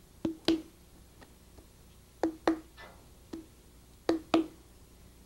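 Sharp taps on a thrown clay pot, mostly in quick pairs with a short dull ring, three double taps and a few lighter single ones, as the clay feet just pressed onto its base are tapped firm so they will stay on.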